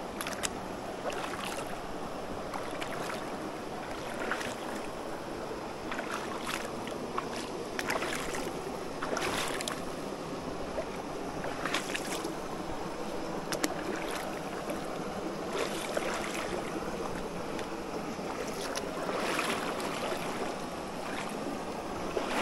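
Wading across a shallow, rocky creek: boots and a trekking pole splash into the water every second or two over the steady rush of the flowing stream.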